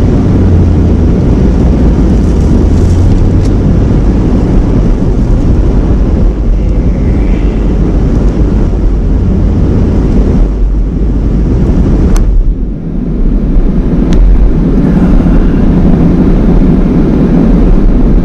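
Van driving on the road, heard from inside the cabin: a steady low rumble of engine and tyre noise, easing off briefly about two thirds of the way through.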